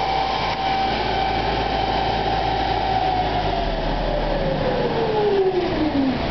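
Car running on a smog-check chassis dynamometer: a steady whine from the spinning drive wheels and rollers holds, then falls smoothly in pitch over the last three seconds as the wheels slow down.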